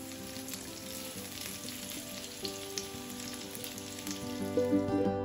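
Hilsa roe and spinach pakoras sizzling as they shallow-fry in oil in a frying pan over a medium flame, a steady crackle with fine pops. Soft background music plays underneath and grows louder near the end.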